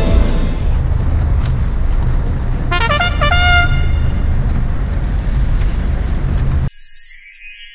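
Steady low rumble of the fishing boat's engine and wind on the open sea, as music fades out in the first second. A short chime of stepped notes sounds about three seconds in, and near the end the sound cuts abruptly to a thin, high jingle.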